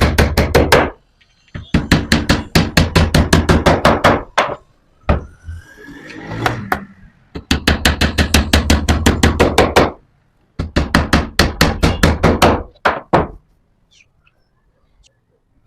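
Rapid knocking, about six strikes a second, in four runs of two to three seconds each, with a steady deep hum beneath. Between the second and third runs there is a softer scraping sound with a rising squeak.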